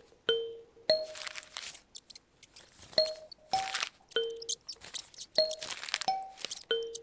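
Kalimba notes plucked one at a time, each ringing briefly, in a slow repeating figure. Crisp bursts of paper rustling come between the notes.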